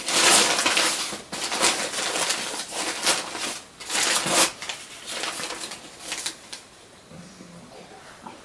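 Plastic packaging rustling and crinkling as it is handled, in irregular crackly bursts that are loudest for the first four seconds or so and die away after about six and a half seconds.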